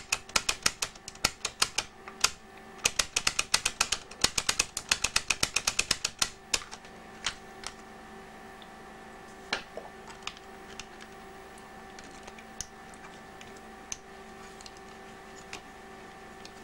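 Small plastic and metal parts of a cassette player's tape mechanism clicking as they are handled and fitted: a fast run of sharp clicks, several a second, for the first six seconds or so, then scattered single clicks. A faint steady hum runs underneath.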